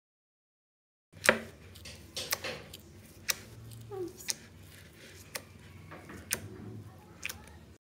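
Fingers kneading and squishing clear glitter slime in a glass bowl, starting about a second in: sticky crackling with sharp clicks and pops roughly once a second, the loudest pop at the start.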